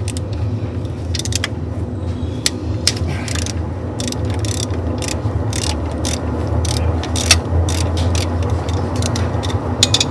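Hand ratchet wrench clicking in short irregular runs as oil pan bolts are turned, over a steady low hum.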